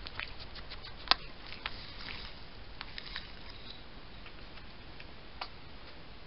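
A hedgehog scuffling past close to the microphone: scattered clicks and crackles of its feet and spines over the ground, with one sharp click about a second in, then dying away as it moves off.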